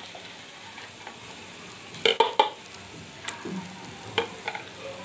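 Sliced onions sizzling in hot mustard oil in a frying pan, with a spatula scraping and knocking against the pan several times, loudest about two seconds in. The onions are being lightly fried, not browned.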